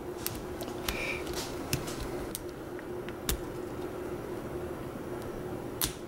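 Scattered faint clicks and scrapes of a steel .031-inch lock pick being worked into the tight PKS WC keyway of a BEST padlock, over a steady hum.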